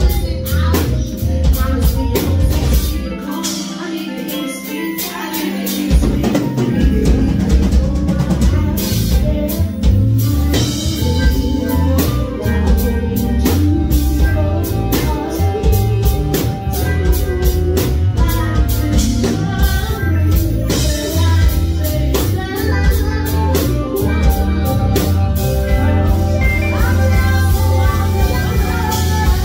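Live band playing with a lead singer and drum kit. The low end drops out for a few seconds near the start, then the full band comes back in about six seconds in.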